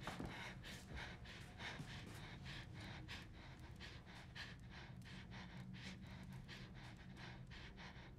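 Faint, rapid, shallow breathing of a frightened woman, a quick run of soft breaths over a low steady hum.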